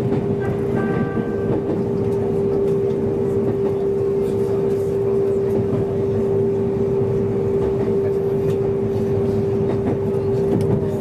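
Kobe Electric Railway train running at an even speed, heard from the front cab: steady rumble of the wheels on the rails under a constant hum.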